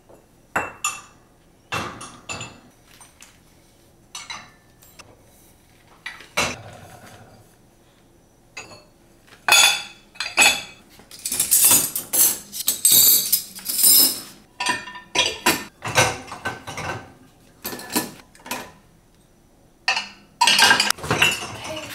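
Dishes being loaded into a dishwasher's wire racks: irregular clinks and clatters of dishes knocking against each other and the racks, thickest about halfway through and again near the end.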